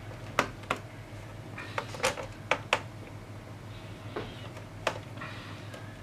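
Irregular sharp clicks and taps, about eight in all, of a screwdriver and small metal parts being handled while the screws are taken out of a laptop's base.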